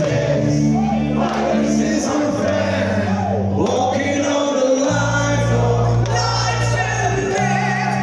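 Heavy metal band playing live, with electric guitars, bass and drums under singing, recorded from within the audience.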